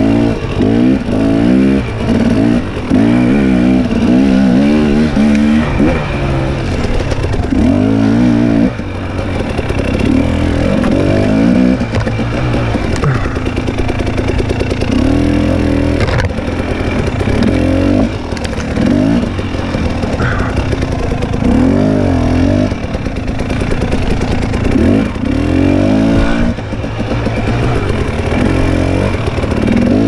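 Husqvarna TX 300 two-stroke dirt bike engine revving up and dropping back over and over under load on a steep, rutted trail, the revs rising and falling every second or two.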